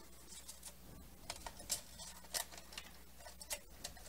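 Faint handling noise: irregular light clicks and scrapes as a stiff Teflon cloth strip is slid and pushed under the metal side clamps of an impulse sealer.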